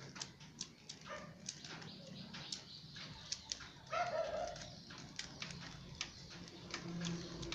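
Plastic Pyraminx puzzle clicking over and over as its layers are twisted to scramble it, with short whining cries about a second and four seconds in.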